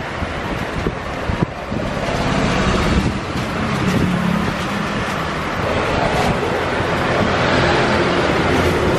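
Steady street traffic noise, with a motor vehicle's engine humming close by from about two seconds in.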